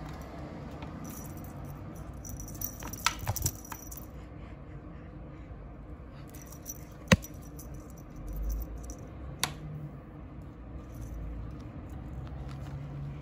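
A kitten batting at a wand toy's paper streamers over a plastic ring track toy: a light jangling rattle about three seconds in, then two sharp single clicks later on.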